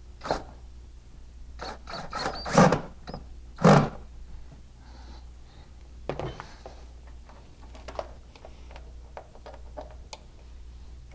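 Knocks, clunks and clicks of a comm box being screwed to a metal display cabinet with a cordless drill, with two loud knocks about two and a half and three and a half seconds in, then lighter clicks and rattles, over a low steady hum.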